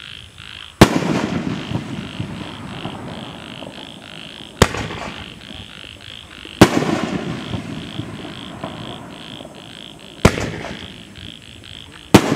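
A 3-inch, 9-shot consumer firework cake firing aerial shells: five sharp booming reports at uneven intervals, each trailing off in a rolling rumble.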